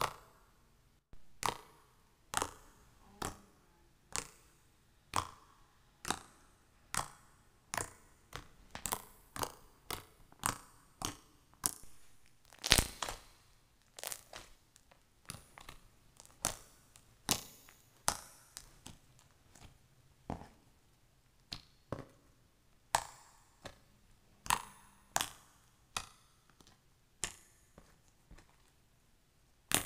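Slime being pressed and squeezed by hand, making sharp clicking pops at uneven intervals, about one or two a second, the loudest about thirteen seconds in.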